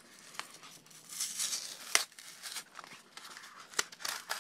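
Plastic blister pack being picked at and pulled open by hand: crinkling and tearing of the plastic shell and card backing, with sharp snaps about two seconds in and again near the end.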